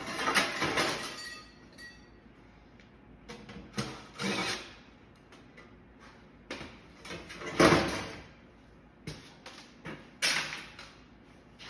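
Work noise from dismantling an air-conditioning unit: a sustained tool sound that fades out in the first second and a half, then several separate bursts of metal scraping and clattering, the loudest near the middle.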